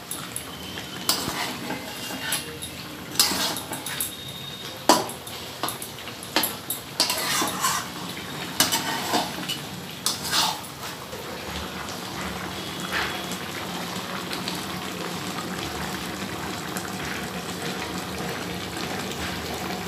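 Metal spatula scraping and knocking against a metal kadai as chicken in yogurt masala is stirred, the strokes coming every second or two and stopping about eleven seconds in. Under and after them, a steady sizzle of the chicken frying down in its own released juices without oil.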